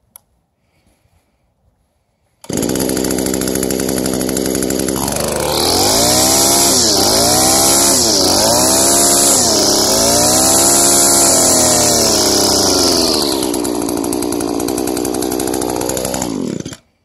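Echo SRM-2100 string trimmer's small two-stroke engine running after a fuel-system rebuild with a new carburetor: it comes in suddenly at a steady idle, is revved up and down about four times and held high, drops back to idle, and stops abruptly near the end.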